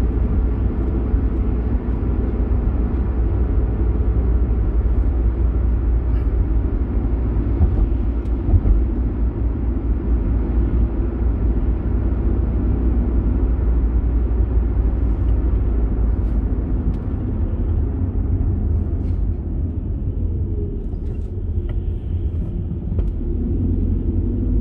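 Car driving along at a steady speed, heard from inside the cabin: a continuous low rumble of engine and tyres on the road.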